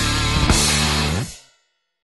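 Rock music with drums and cymbals that ends about a second and a half in, followed by silence.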